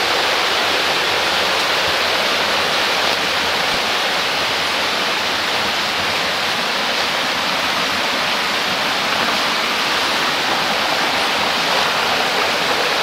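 Rocky stream rushing over and between boulders: a steady rush of water.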